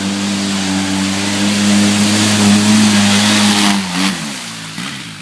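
Polaris RZR 800 side-by-side engine held at high revs under throttle as it drives through a mud pit, with a rushing noise over it. About four seconds in the revs drop back and waver as the throttle comes off.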